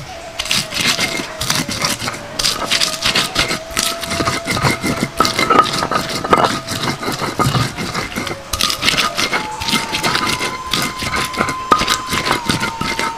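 Stone pestle grinding on a flat stone grinding slab (batu giling), crushing shallots, green bird's eye chillies and spice paste: quick, repeated gritty scraping and crunching strokes of stone on stone.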